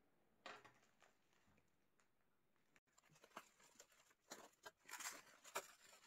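Plastic bubble wrap crinkling and rustling as it is handled and pulled off a glass jar. There is one short rustle about half a second in, then a quick run of crinkles from about three seconds on.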